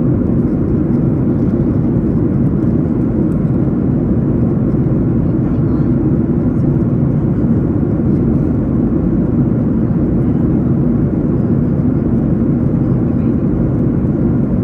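Steady low drone of airliner cabin noise, holding at an even level throughout.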